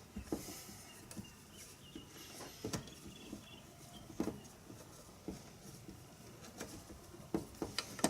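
Scattered light clicks, taps and short scrapes of hand tools working on the metal parts of an animatronic head mechanism.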